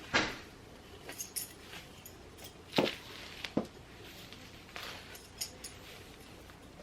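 Scattered light clicks, taps and brief rustles of small objects being handled, about half a dozen separate sounds, the sharpest about three seconds in.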